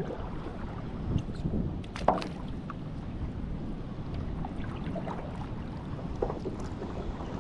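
Stand-up paddleboard paddle dipping and pulling through calm water, with small splashes and drips over a steady low rumble; one sharper splash about two seconds in.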